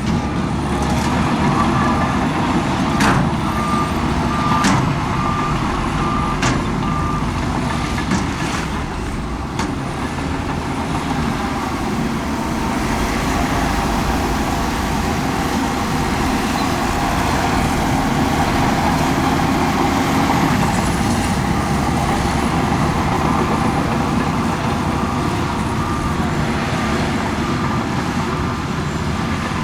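Heavy diesel earthmoving machinery running steadily under load, with a reversing alarm beeping in a steady series for a few seconds near the start and again near the end. Several sharp knocks stand out in the first few seconds.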